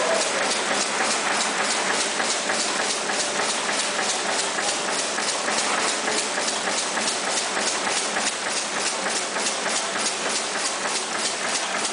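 Automatic plastic-bag cutting and sealing machine running in production, its servo-fed sealing and cutting bar cycling in a rapid, even ticking rhythm over a steady mechanical hum.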